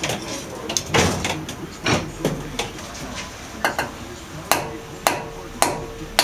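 Hammer blows tapping a new metal cap onto the front hub: a few scattered knocks, then from about halfway steady strikes about two a second, each with a metallic ring.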